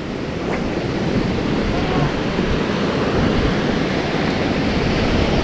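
Ocean surf washing in at the shoreline, a steady rush that grows gradually louder.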